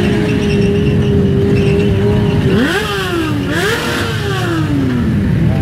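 Sport motorcycle engine during a tyre-smoking burnout, held at steady high revs, then revved up sharply twice about halfway through before the revs fall away slowly near the end.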